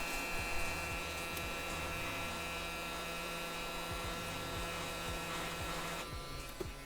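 Steady electrical hum from bench electronics equipment with a hiss of blowing air over it; the hiss cuts off about six seconds in.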